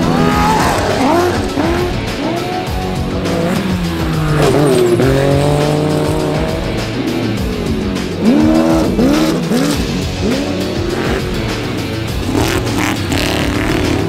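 Off-road desert race trucks and buggies going past at speed, their engines revving up and down in quick rises and falls, over background music.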